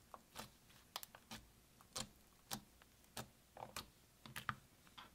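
Pink glitter slime squeezed and pressed between the fingers, giving a series of short, sharp clicks, roughly two a second, as pockets of air in the slime burst.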